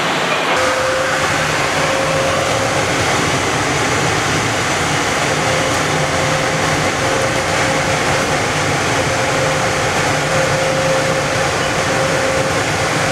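Bombardier Innovia APM 100 people-mover car running along its elevated guideway, heard from inside the cabin: a steady rumble of its rubber tyres on the concrete track, with a steady whine that sets in about half a second in.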